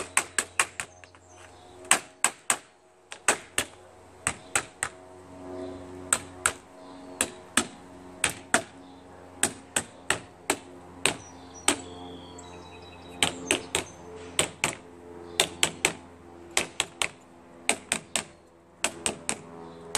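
Claw hammer lightly tapping the plastic frame of a pet door into a mesh screen door: quick sharp taps in clusters of several, with short pauses between clusters.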